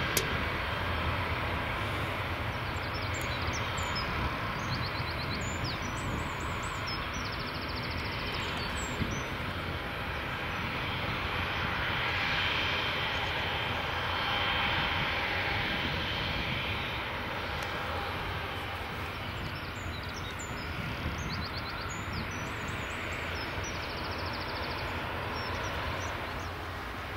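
Jet airliner on approach to land, its engines a steady rushing roar that swells to a peak about halfway through and then slowly fades.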